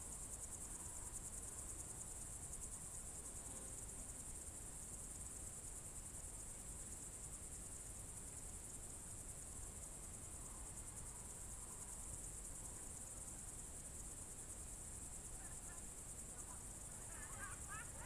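Crickets chirring in a steady, unbroken high-pitched trill on a June evening. A few short chirps come in near the end.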